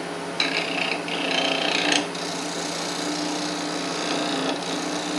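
Wood lathe running with a steady motor hum while a bowl gouge cuts the leftover stub from a spinning wooden sphere. A hissing burst of cutting starts just under half a second in and lasts about a second and a half, then lighter tool contact continues over the hum.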